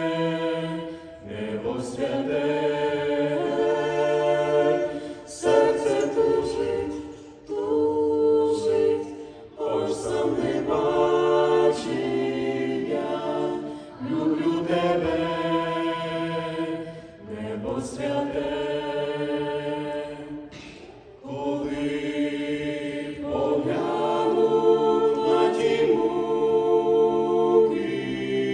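Mixed vocal quartet of two men and two women singing a Ukrainian song a cappella in harmony, in held phrases of a few seconds with short breaks between them.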